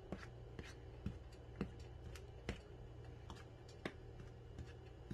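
Metal spoon stirring flour and spices on a plate, with faint, irregular clicks and taps of the spoon against the plate, about two a second.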